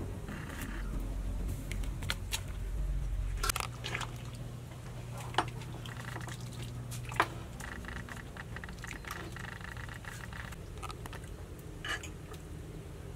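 Thick sweet glutinous rice ball soup bubbling in a pot, then a ladle scooping it out and knocking sharply twice against the pot and the ceramic bowl; near the end a spoon clinks once in the bowl.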